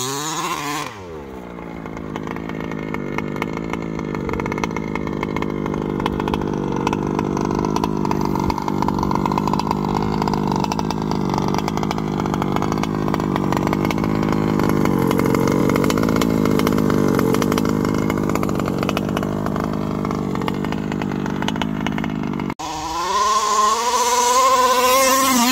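Two-stroke petrol engine of a 1/5-scale HPI Baja 5T RC truck with a tuned pipe. It drops in pitch as it begins, runs at a steady, even speed for about twenty seconds, then near the end is revved up and down.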